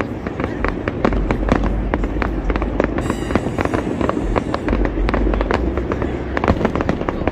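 Aerial fireworks display with shells bursting in quick succession: many sharp bangs and crackles over a steady low rumble.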